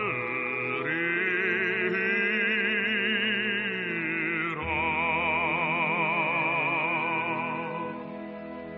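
A classical-style voice sings long held notes with wide vibrato in a Korean art song, over sustained accompaniment; the note changes twice, and the voice fades near the end, leaving quieter accompaniment.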